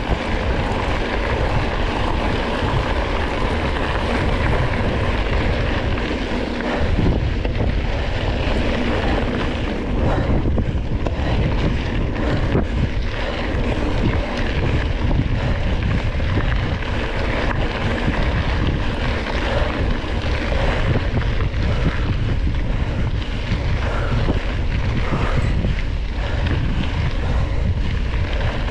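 Wind rushing over the microphone and tyre rumble from a single-speed Surly Krampus mountain bike riding a dirt trail, a steady, heavy noise with a few faint knocks.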